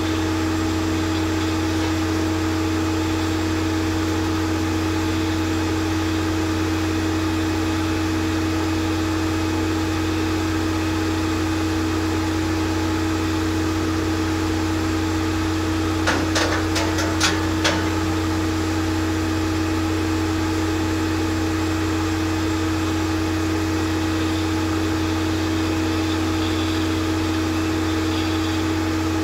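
Ice-drilling rig running steadily as its auger turns, boring the start of a hole into snow and firn: a constant machine hum with a few short sharp clicks a little past halfway.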